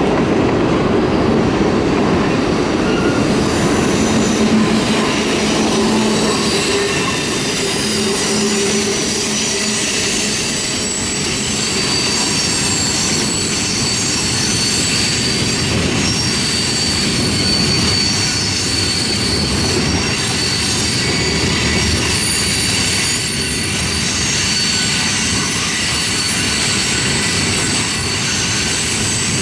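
Freight cars of a long Norfolk Southern train rolling past on curved track: a steady rumble of steel wheels on rail with high-pitched wheel squeal that keeps up from about a third of the way in.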